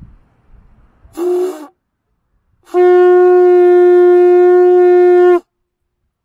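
A conch shell horn blown twice: a short blast about a second in, then one long steady note held for nearly three seconds that stops abruptly.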